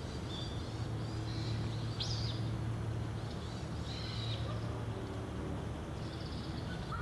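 Outdoor ambience with wild birds giving a handful of short, high chirps, the clearest about two seconds in, over a steady low hum.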